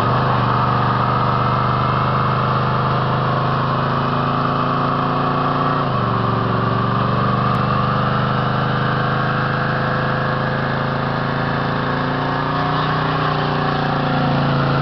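1966 Dodge Charger's V8 held at high, steady revs during a burnout, its rear tyres spinning and squealing on the asphalt. The revs dip briefly about six seconds in, then hold again.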